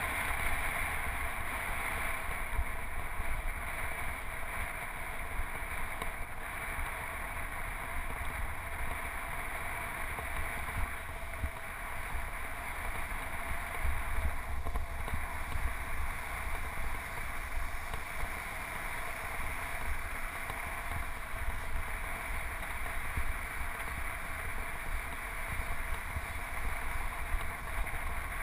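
Wind rushing over the microphone and tyre and road rumble from a road bike rolling along asphalt: a steady noise with a strong low rumble underneath.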